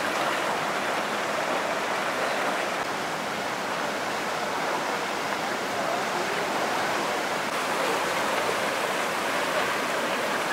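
Steady rushing of the River Usk in full flood, fast brown floodwater pouring past a stone bridge and through half-submerged trees.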